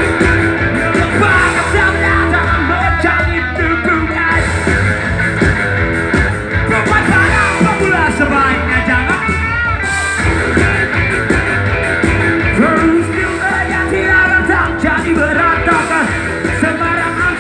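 A rock band playing live through a loud concert PA, heard from within the crowd: a singer over electric guitars, drums and a heavy bass.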